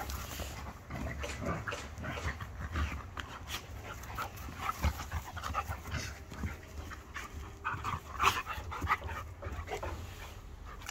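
Two dogs, an Irish Setter and a Border Collie cross, play-fighting: panting with quick, irregular short noises from their scuffle, and one sharper, louder sound about eight seconds in.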